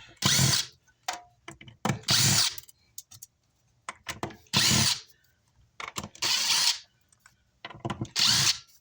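Cordless power screwdriver run in five short bursts, backing screws out of a car amplifier's metal case, with small clicks of handling between bursts.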